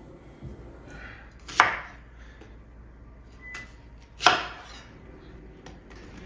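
Two sharp knocks of something hard struck or set down, about two and a half seconds apart, with a few fainter clicks between them.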